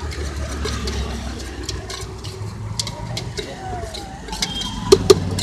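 Metal spoon clinking and scraping against a steel tumbler as bhel puri is mixed, a run of quick clicks with two sharp, loud taps near the end, over a low steady traffic rumble.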